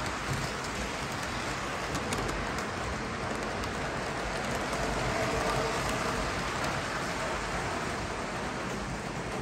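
Three-rail O scale model freight cars rolling past on the track, a steady even rolling noise of metal wheels on rail. It swells slightly about midway and eases a little as the last car goes by.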